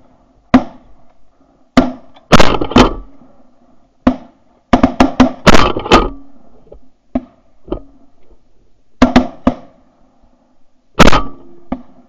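Shotguns of several goose hunters firing in a volley: well over a dozen sharp, loud shots, some in quick bunches of three or four, with short pauses between.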